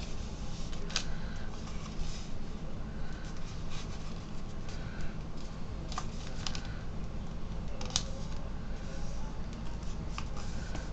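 A sheet of paper being folded and creased by hand: soft rustling and crinkling with a few sharp clicks, over a steady low hum.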